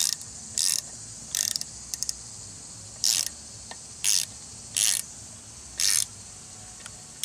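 A socket ratchet clicks in short strokes, about seven quick runs roughly a second apart, as it turns the screw of a valve spring compressor to compress a cylinder-head valve spring so the keepers can be removed.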